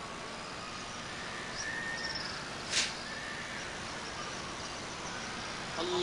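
Steady open-air hush of a large mosque courtyard during a silent pause in congregational prayer, with a few faint high chirps and one short sharp noise about three seconds in. At the very end a man's voice begins to chant.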